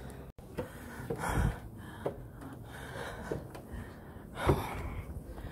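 People climbing steep wooden stairs: irregular footfalls and knocks on the timber steps, with someone gasping for breath.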